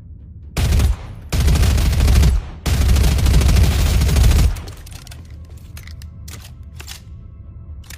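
Sound effect of the K&W MP6 submachine gun: three bursts of automatic fire, a short one, then two longer ones, followed by a few quieter clicks.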